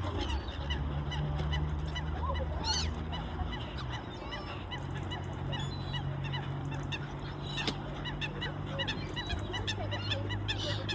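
A crowd of waterbirds calling, mostly geese honking: many short honks and squawks overlapping without pause, over a low steady hum.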